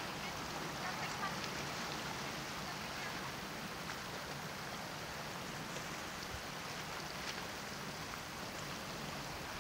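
Steady seaside ambience: an even wash of small waves on the rocks, with faint distant voices in the first couple of seconds.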